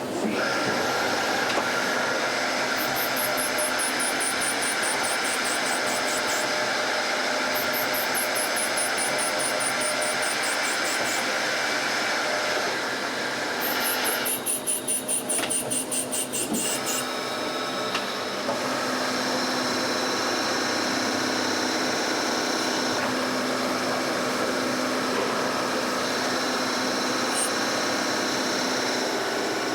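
CNC turning center running a machining cycle: steady machine noise with held tones. High whines fall in pitch three times, the third coinciding with a brief wavering change in the noise.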